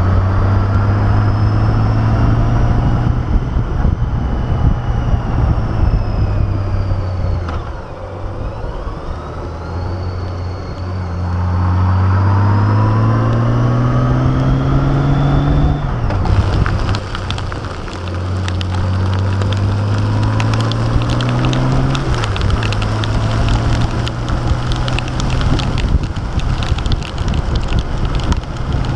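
Honda Gold Wing GL1800's flat-six engine running at road speed over wet-road and wind noise. The engine note falls about seven seconds in, then climbs twice as the bike accelerates, dropping back after each climb.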